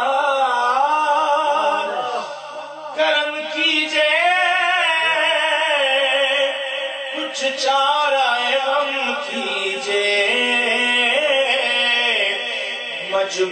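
A man singing a naat, Siraiki rubai verses in praise of the Prophet, into a microphone. The melody moves in long, wavering held notes, with a short break about two seconds in before a new phrase begins.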